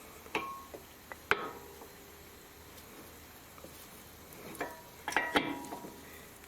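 Light metallic clinks and knocks, a few separate ones with a short ring after each, the loudest about a second in and again near the end: metal tools and brake caliper parts being handled and set against each other.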